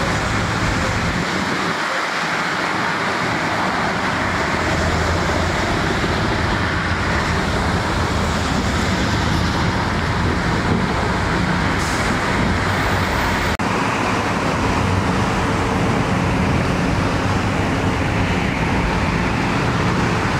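Steady road-traffic noise with a low engine hum running under it.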